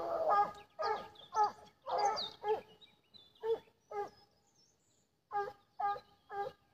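Scent hound baying on the hunt in short, repeated pitched bays. The bays come thick at first, pause for about a second past the middle, then resume at about two a second.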